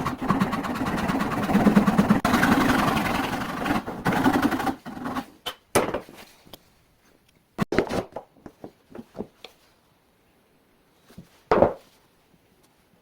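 Wood being worked by hand: a continuous fast rasping cut that stops about five seconds in. It is followed by scattered light taps and knocks on wood, and one louder knock near the end.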